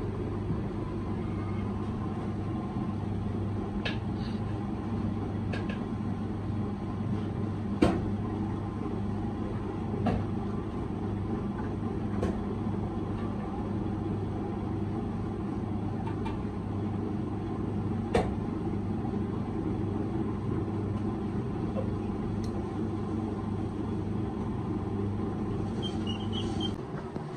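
Potter's wheel running with a steady hum while a large clay water-cooler pot is shaped on it, with a few sharp clicks now and then. The hum cuts off just before the end.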